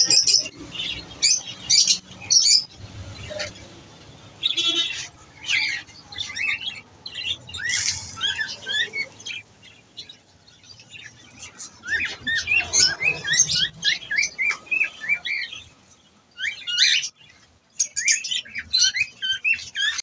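A shop full of caged pet birds, budgerigars, lovebirds and small finches, chirping and squawking over one another in short calls, with a quick run of repeated chirps about two-thirds of the way through.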